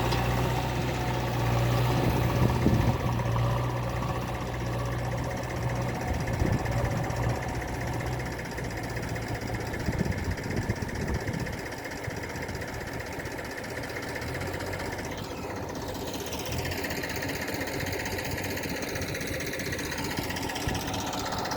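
JCB 3DX backhoe loader's diesel engine running with a steady low drone, with a few louder clunks in the first half. After about ten seconds the engine settles to a quieter, even run.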